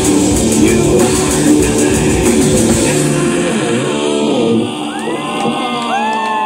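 Live heavy industrial metal band playing: distorted guitars, bass and drum kit with singing. About four and a half seconds in the drums and bass drop out, leaving a few sustained, bending higher tones as the song ends.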